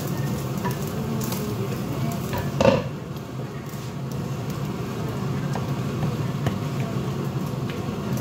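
Ground-meat sauce sizzling in a frying pan while a wooden spatula stirs and scrapes through it. About two and a half seconds in there is a single loud knock, as a pot lid is set down on a pot.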